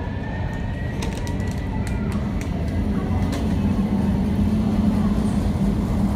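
Jet airliners taxiing: a low, steady engine rumble that grows gradually louder.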